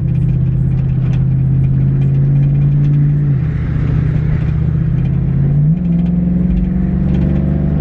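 Truck engine running while driving, heard from inside the cab. Its note drops suddenly about three seconds in and rises again a little before six seconds, as with gear changes.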